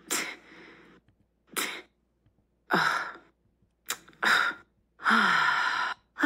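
A run of short recorded human non-verbal vocal bursts, breathy sigh-like exhales and scoffs, samples of the kind rated as disgust, contempt and disappointment. Five come one after another with brief silences between, the last lasting about a second.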